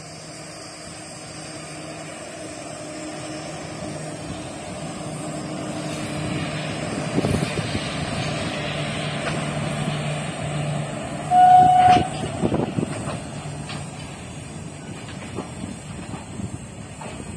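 WAG7 electric locomotive hauling five empty BCNA covered wagons passes by, its motors humming steadily and growing louder as it nears. A short horn blast a little past the middle is the loudest sound. After it, the wheels of the empty wagons click over the rail joints.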